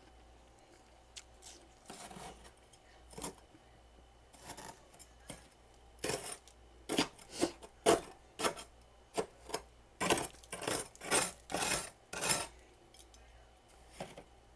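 Freezer frost crunched between the teeth close to the microphone: a run of sharp, crisp crunches, a few scattered at first, then coming thick and loud from about six to twelve seconds in.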